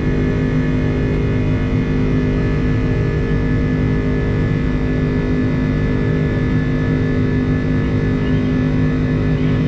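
Airbus A330 jet engines heard from inside the passenger cabin: a steady drone of low rumble with constant humming tones over it.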